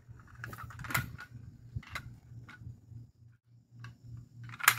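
Metal clicks and clinks from a hanging dial spring scale and its clip as it is unhooked from a channel catfish and handled with gloved hands, with the loudest clatter near the end. A low hum pulses a few times a second underneath.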